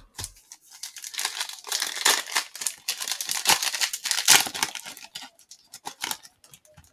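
A foil trading-card pack wrapper being torn open and crinkled, a dense run of crackling and ripping that thins out near the end.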